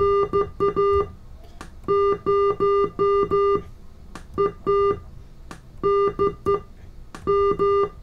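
Morse code sidetone from a uBITX transceiver, played through room speakers and keyed with a single-lever paddle in iambic keyer mode: a steady beep switching on and off in groups of short and long elements, spelling out a ham radio call sign.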